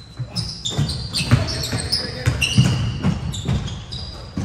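Basketball bouncing repeatedly on a court floor, about twice a second, with sneakers squeaking.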